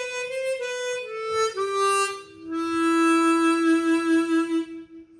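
Easttop EAP Performer 16-hole chromatic harmonica, fitted with its stock covers, played solo: a short run of notes stepping downward, then a long low note held with a pulsing vibrato that fades out near the end.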